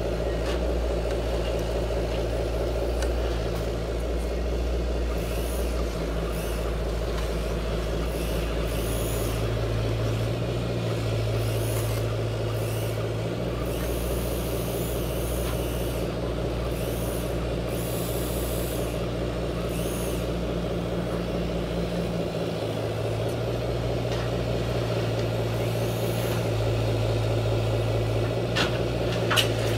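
Hydraulic pump of a large radio-controlled Caterpillar excavator running steadily, its hum shifting in tone every few seconds as the boom and bucket are worked. Short hisses come and go, and there are a couple of sharp clicks near the end.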